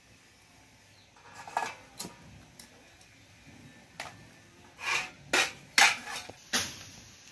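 Metal clinks and clatter of kitchenware: a metal wok with a ladle in it being handled and set down on a small gas stove. A few scattered clinks come first, and a quick run of louder clanks comes near the end.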